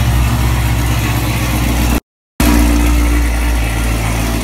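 Camaro SS 6.2-litre V8 with long-tube headers idling steadily, warming up shortly after being started. The sound drops out briefly about two seconds in, then the same idle picks up again.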